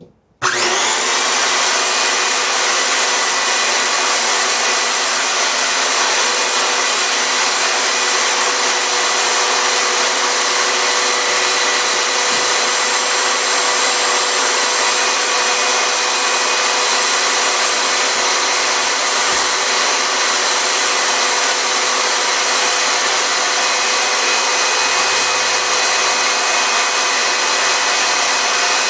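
Homemade table saw switched on and spinning up about half a second in, then running steadily at speed with a loud, even whine.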